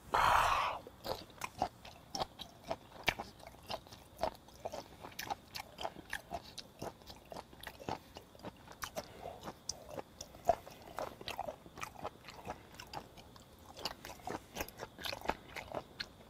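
Close-miked chewing of raw flounder sashimi: many small, irregular wet mouth clicks and smacks. A short, louder breathy sound comes right at the start.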